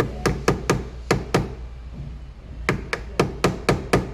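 Repeated sharp taps on a corroded battery terminal clamp that is stuck fast on its post, knocking it to work it loose. The taps come in two quick runs of about six, with a pause of about a second between.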